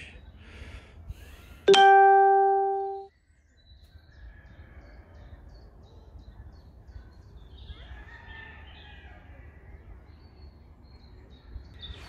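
A single loud bell-like ding about two seconds in. It rings for about a second and then cuts off abruptly. Afterwards there is faint outdoor background with a few faint chirps.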